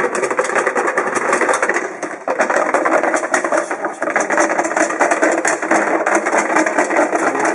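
Plastic tub being shaken hard, its paper entry slips rattling and rustling rapidly inside, with a brief pause about two seconds in.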